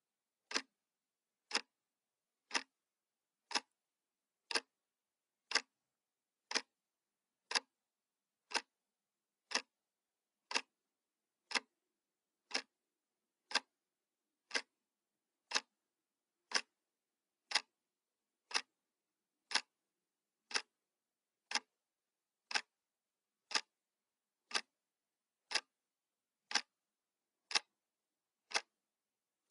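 Clock ticking sound effect: a single sharp tick once every second, perfectly regular.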